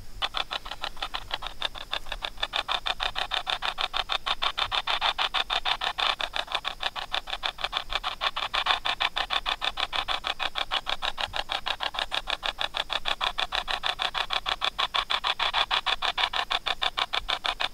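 A spirit box app playing from a phone's speaker: a rapid, evenly chopped static, like a radio scanning through stations many times a second, sweeping for replies to a question just put to it.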